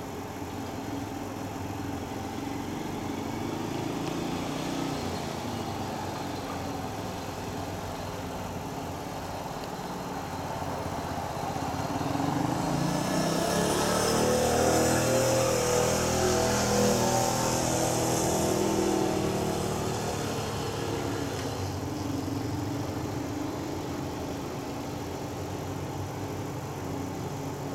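Engine noise runs steadily throughout and swells to its loudest around the middle. There the pitch rises and then falls, and a hiss is added, before the sound settles back.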